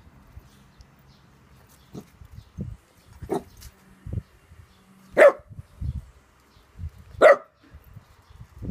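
A dog barking at a cat in single sharp barks: a softer bark about three seconds in, then two loud barks about two seconds apart.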